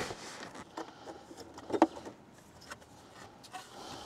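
Sparse light clicks and knocks of hard plastic speaker-housing parts being handled and pulled apart, with one louder knock a little under two seconds in.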